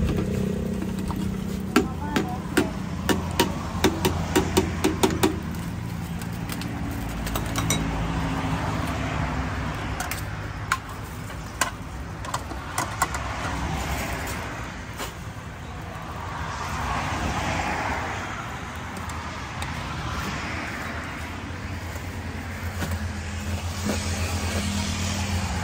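Street ambience with a vehicle engine running steadily, and a quick run of about a dozen sharp knocks a couple of seconds in, with a few more scattered knocks near the middle.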